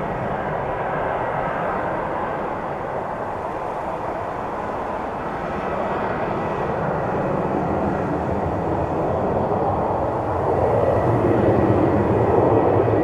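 Jet airliner's engines at takeoff power, a steady roar that grows louder from about ten seconds in.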